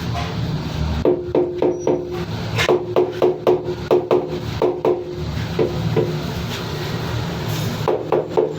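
Runs of quick, sharp taps, two or three a second, each with a short ringing tone: tiles being tapped into place on a wall. A steady low hum runs underneath.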